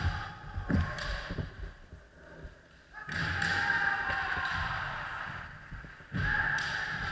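Kendo fencers sparring: sharp knocks of bamboo shinai strikes and stamping feet on a wooden floor in the first second and a half, then long drawn-out kiai shouts falling in pitch, one from about three seconds in and another just after six.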